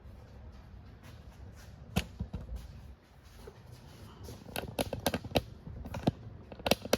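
Sharp clicks and knocks of hard plastic tools being handled and set in place: a single knock about two seconds in, then a quick run of clicks and knocks toward the end, as cordless drills are put onto a storage shelf.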